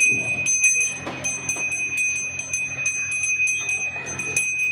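Brass puja hand bell rung rapidly and continuously for the aarti, its clapper striking about four times a second over a steady ring.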